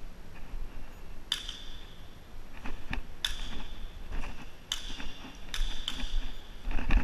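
Airsoft guns firing single shots at uneven gaps, about half a dozen sharp cracks each with a short metallic ring, over low rumble and handling noise from the helmet camera.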